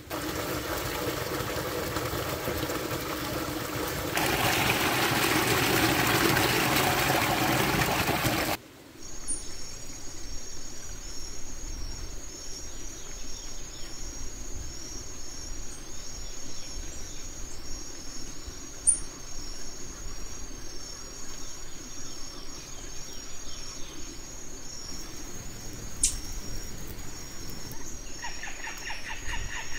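A mountain stream rushes loudly, getting louder about four seconds in, and cuts off suddenly after about eight and a half seconds. Then a steady, high-pitched pulsing trill keeps on over quiet forest background, with two sharp snaps.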